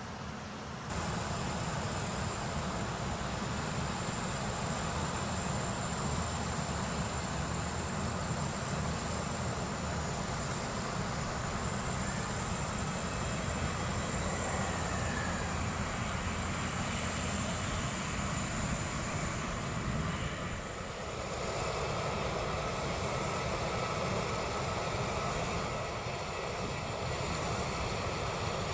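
Airbus A320-family airliner jet engines running, a steady rumbling roar with a thin, steady high tone above it. The level steps up about a second in and dips briefly past two-thirds of the way through.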